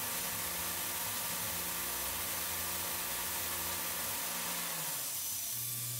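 Tormach 770 CNC mill engraving P20 tool steel with a 0.020-inch ball end mill, spindle at 10,000 RPM: a steady hiss from the spray nozzle aimed at the cutter over a faint spindle hum. About five seconds in the spindle hum drops away and a lower hum takes over.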